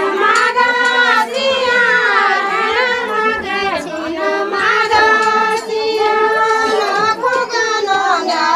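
A group of women singing a Garhwali folk song in chorus: high voices carrying a flowing, repeating melody, with notes held and gliding.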